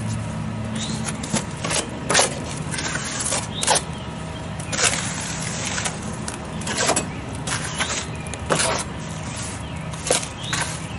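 Trowel spreading wet mortar wash over brick: a series of short, irregular scraping swishes, one per stroke, over a steady low hum.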